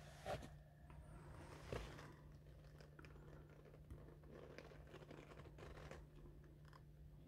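Near silence: a faint steady low hum, with a few soft rustles and knocks, the clearest just after the start and about two seconds in.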